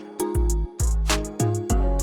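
Background music with a steady beat: drums, bass and plucked guitar-like notes.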